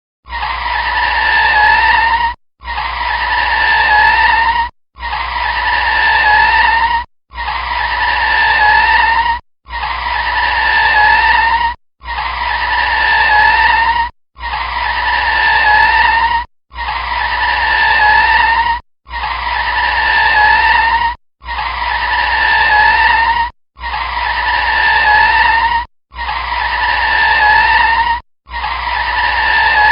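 Car tyres screeching under hard braking, a short squeal in two steady pitches with a low rumble beneath. It is repeated about every two and a half seconds, some thirteen times, each screech building in loudness and then cutting off abruptly.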